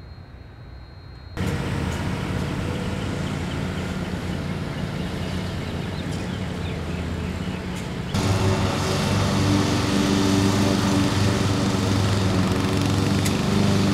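Steady engine hum that cuts in suddenly about a second in and gets louder about eight seconds in, where the small engine of a ride-on turf machine runs close by.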